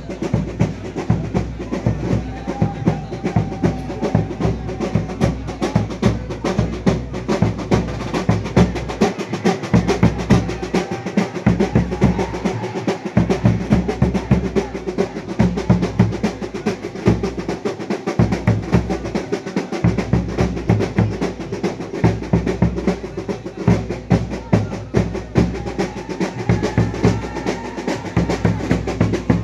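A drum ensemble playing fast, continuous drum rolls, dense rapid stick strokes with no break.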